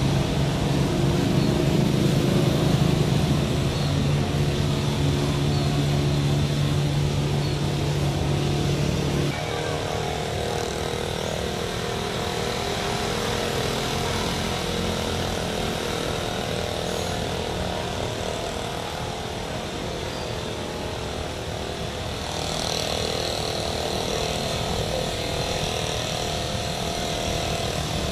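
Airliner jet engines running: a strong low drone that cuts off abruptly about nine seconds in to a quieter, even rumble and hiss, with a high whine joining about two-thirds of the way through.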